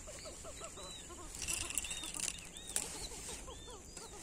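Animal calls: a faint chorus of short chirps, several a second, with a few higher chirps now and then over a steady hiss.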